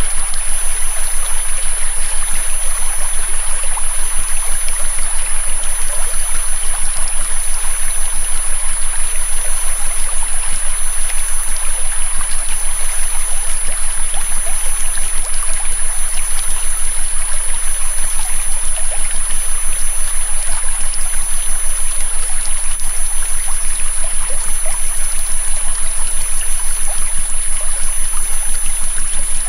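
Flowing river water mixed with steady, high-pitched electronic tones and a faint low hum, the whole mix pulsing rapidly and evenly.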